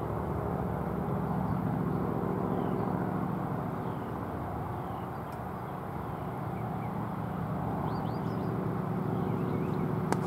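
A steady low mechanical hum, with a few faint high chirps and one sharp click near the end.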